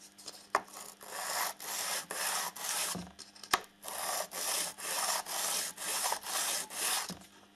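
A small milled metal model-rail profile rubbed back and forth by hand on 400-grit abrasive paper over glass, about two hissing strokes a second, smoothing its rough milled surface. One sharp click about midway.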